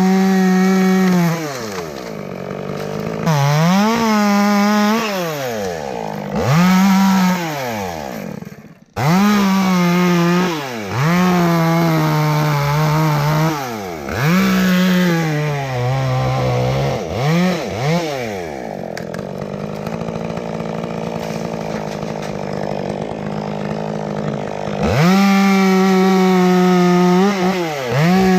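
Two-stroke chainsaw cutting dead elm, revved to full throttle and let back to idle again and again. During longer cuts its pitch sags as the wood loads the saw. The sound breaks off abruptly about nine seconds in and comes straight back.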